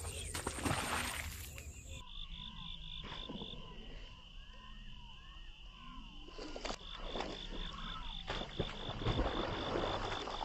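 A fishing rod swishes through a cast. Then come marsh sounds: a high call pulsing about six times a second and short bird chirps. In the last few seconds there are splashes at the water's surface.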